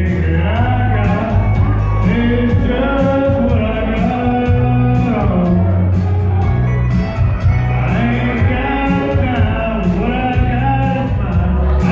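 Karaoke: a person singing a slow song over a backing track with a heavy bass line.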